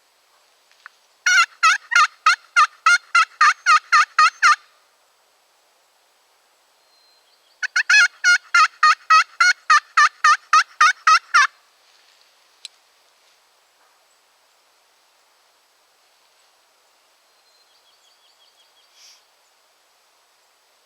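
A hunter's turkey call imitating a hen: two loud runs of rapid yelps, about five notes a second, each run three to four seconds long with a pause of about three seconds between.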